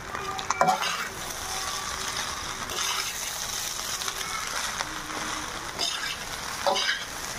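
Chicken fried rice sizzling in an iron kadai on high heat while cooked rice is stirred in, a metal spatula scraping and clicking against the pan now and then over a steady frying hiss.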